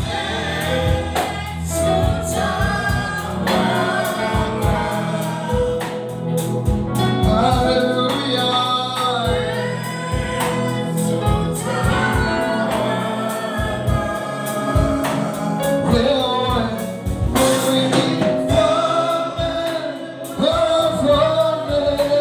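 Live gospel worship song: men and women singing into microphones, backed by a drum kit and an electric keyboard, amplified through loudspeakers.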